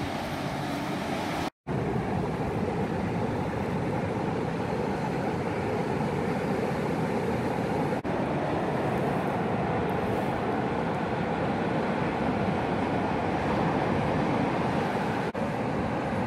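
Steady rushing noise of surf on a beach mixed with wind blowing across the microphone. It cuts out for an instant about a second and a half in.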